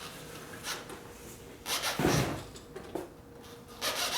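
Objects being handled and set down on a workbench: scattered knocks and clatter, with a heavier thump about two seconds in, over a faint steady hum.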